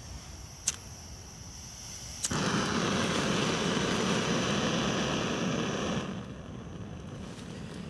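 Backpacking gas canister stove: a faint hiss of gas from the open burner and a sharp click about a second in, then at a second click a little after two seconds the gas lights and burns with a loud, steady rushing noise, which stops abruptly about four seconds later.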